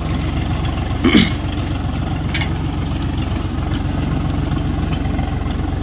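Swaraj 744 tractor's three-cylinder diesel engine running steadily while it pulls a seed drill. A brief higher-pitched sound comes about a second in.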